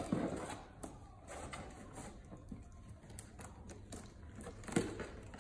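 Cardboard package being worked open by hand: soft rustling and scraping with scattered light clicks, and a sharper knock near the end.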